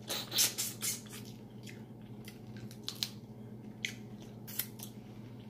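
Close-up wet mouth sounds of eating sauced seafood: smacking and chewing on shrimp and crab meat. They come as a string of short sharp clicks and squishes, several close together in the first second, then scattered.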